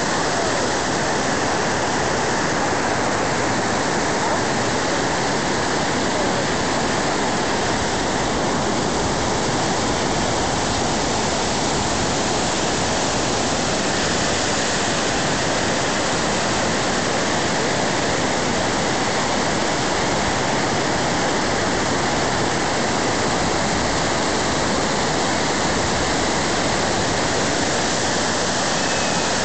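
A steady, even rushing noise with no lines, beats or breaks in it.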